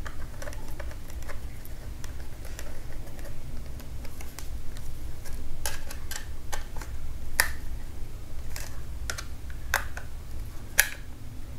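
Irregular light clicks and taps of a small screwdriver and small parts being handled in an opened laptop while an SSD and its screws are being fitted. The clicks grow sharper and louder from about halfway through.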